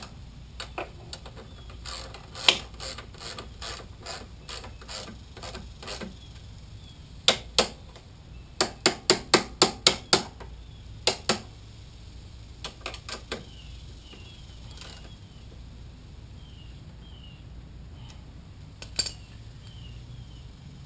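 Hand socket ratchet wrench clicking in short runs as a bolt is turned, with a quick run of about six clicks in the middle and scattered single clicks.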